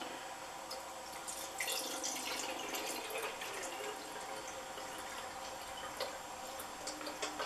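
Water poured from a glass mug into an aluminium pop can through its opening, a steady trickle with a few light ticks, while water runs out of the nail holes near the can's base into a glass baking dish.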